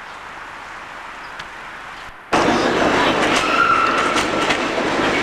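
A low steady hiss with a few faint ticks, then about two seconds in an abrupt cut to the loud rattle and clatter of riding a San Francisco cable car along its slotted track, with a brief high squeal in the middle.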